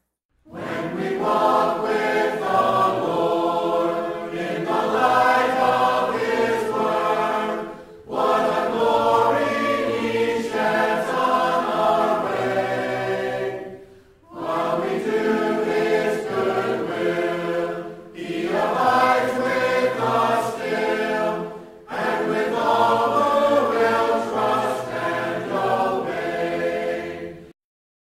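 Choir of voices singing a hymn, seemingly unaccompanied, in several long phrases with short breaks between them, cutting off shortly before the end.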